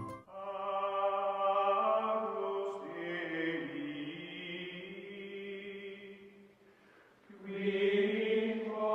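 Music of long held, chant-like voices, sustained for several seconds, dipping away about six seconds in, then swelling again for a final held chord that cuts off abruptly.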